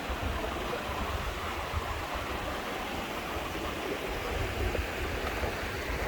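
Rushing water from a river and waterfalls, a steady hiss with an uneven low rumble underneath.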